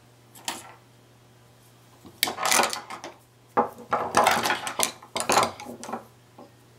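A loose pile of screwdrivers clattering on a wooden table as hands rummage through them, metal shafts and handles knocking together: a short rattle about half a second in, then a longer run of clattering from about two seconds in until near the end.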